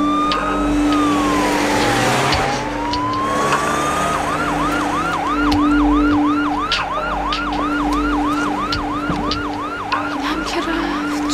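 Ambulance siren: a slow wail that rises, falls and rises again over the first four seconds, then switches to a fast yelp of about three or four sweeps a second.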